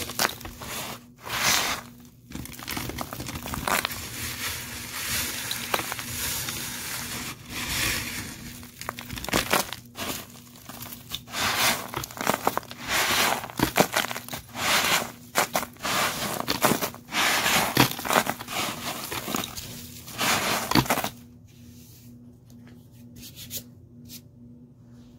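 Dry dirt, lint, confetti and small gems being dropped and crumbled onto a debris pile: irregular rustling and crunching with sharp clicks. It stops suddenly about 21 seconds in, leaving only a faint steady hum.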